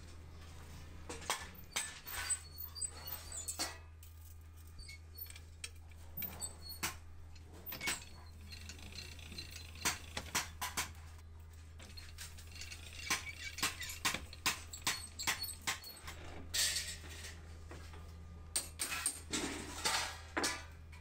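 Thin stainless-steel sheet-metal cylinders and rings clinking and knocking against each other and the floor as they are handled: irregular sharp taps, busiest near the middle and again near the end, over a steady low hum.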